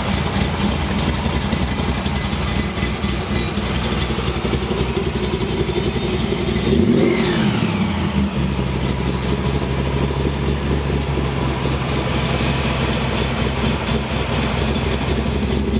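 Plymouth Barracuda's V8 idling through its exhaust, revved once about seven seconds in: a quick rise and fall in pitch, then back to a steady idle.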